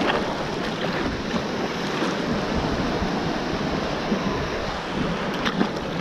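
Sea water washing and splashing over a shallow reef close to the microphone, with wind buffeting the microphone.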